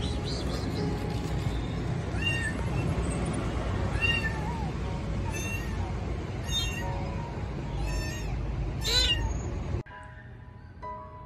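Young tortoiseshell kitten meowing repeatedly: about six short, high, arching meows roughly a second and a half apart, the last the loudest. Soft music takes over near the end.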